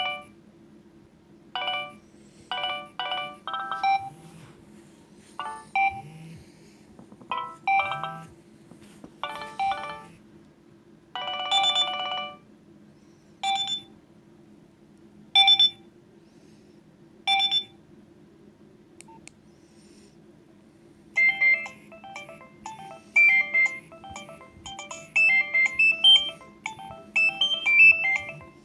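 Nokia 2610 polyphonic ringtones. The first is a sparse tune of short note clusters separated by gaps, ending about two-thirds of the way in. After a short pause a second, busier ringtone melody starts.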